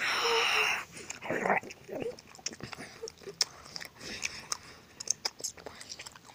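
A brief loud, breathy vocal noise, then scattered soft clicks and rustles as a plush shark toy is pushed against a Mickey Mouse plush in a pretend bite, with small chomping mouth sounds.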